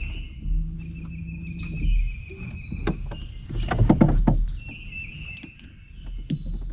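Knocks and handling noises in a small one-man boat on the water, a few louder knocks around the middle. Under them run repeated short high chirps and a steady high tone from swamp wildlife.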